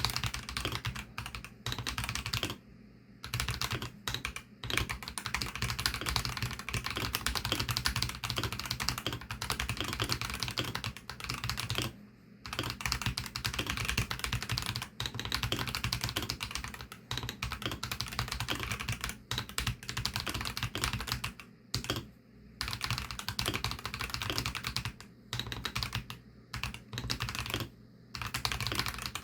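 Continuous fast typing on a Varo V87 mechanical keyboard with Varo Orange 53 g tactile switches: a rapid run of keystroke clicks, broken by a few brief pauses.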